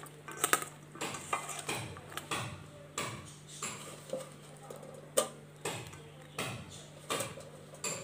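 Hand-mixing spiced strips of potato, brinjal and onion in a stainless-steel bowl: soft wet squishes and light clinks against the bowl, repeating about one and a half times a second. A low steady hum runs underneath.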